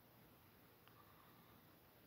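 Near silence: room tone, with two faint ticks a little under a second in.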